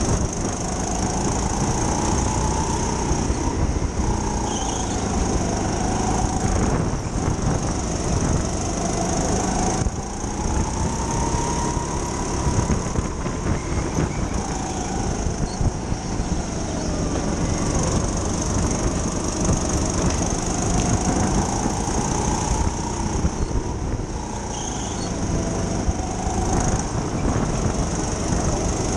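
Indoor racing go-kart running at speed, its motor pitch rising and falling every few seconds, over a steady high whine.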